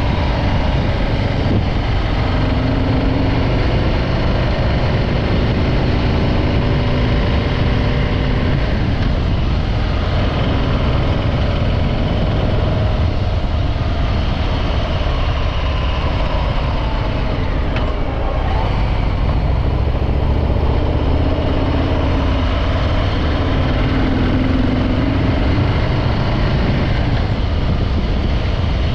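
Harley-Davidson Breakout 114's Milwaukee-Eight V-twin running through its stock exhaust while riding, the engine note falling off about halfway through and picking up again later.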